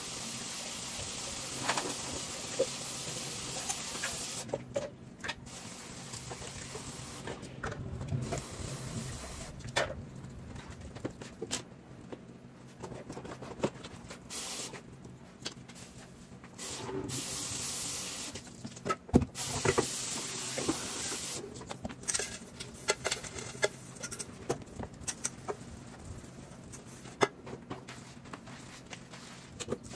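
Kitchen tap running into the sink during hand dishwashing, shut off and turned back on several times, with frequent clinks and knocks of cutlery, dishes and a pan.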